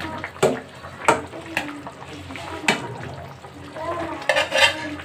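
A spatula stirring curry in a pan, knocking sharply against the pan several times over a low frying sizzle, with a quick run of knocks near the end.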